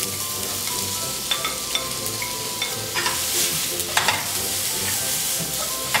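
Minced garlic and onion sizzling as they fry in hot olive oil in a frying pan. The spatula stirring them taps against the pan a few times.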